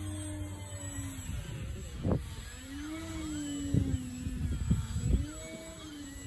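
Carbon-Z Yak RC aerobatic plane flying overhead: the whine of its electric motor and propeller sags and rises in pitch a few times as throttle and distance change. Wind buffets the microphone with several low thumps, the loudest sounds, about two seconds in and again from near four to five seconds in.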